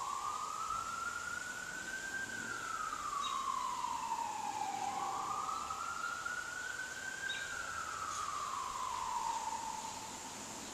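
Emergency vehicle siren wailing: one tone slowly rising and falling twice, each sweep taking about five seconds.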